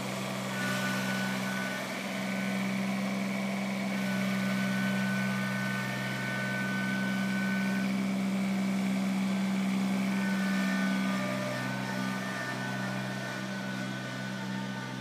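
Compact tractor engine running steadily while the tractor works a front loader, with a thin higher whine that comes and goes.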